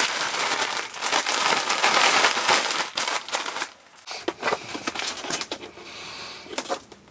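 Plastic bag crinkling and rustling as walleye pieces are shaken in breading mix, stopping about halfway through. Then a few light clicks and knocks as a plastic oil jug is handled.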